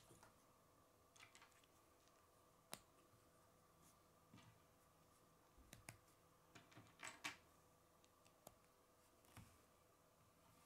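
Faint, scattered clicks and taps of plastic K'nex rods and connectors being handled and snapped together, with a sharper click about three seconds in and a small cluster around seven seconds. A faint steady hum lies underneath.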